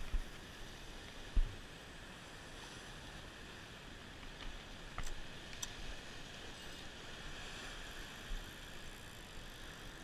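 Faint steady wash of small waves breaking against shoreline rocks, with a couple of soft thumps and a few light clicks.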